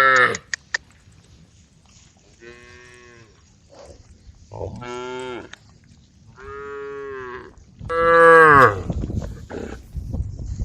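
Cattle mooing, one long call after another: a faint moo about two seconds in, then louder moos, the loudest near the end.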